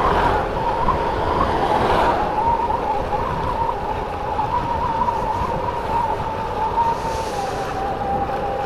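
Motorcycle running at road speed, a steady high whine that wavers slightly and drops a little in pitch near the end, over low wind rumble on the microphone.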